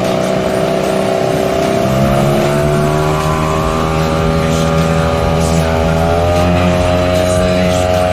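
Small 3.3 hp outboard motor pushing a kayak at speed, its pitch rising twice, about two seconds in and again around six seconds in, as it is throttled up, with a hiss of water rushing past.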